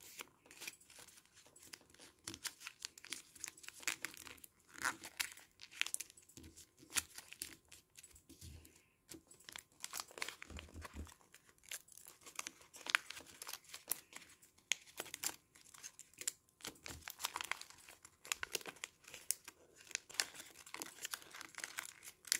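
Thin colored origami paper crinkling and rustling in soft, irregular crackles as fingers crease the folds and tuck the inner flaps of a multi-sheet paper top inward.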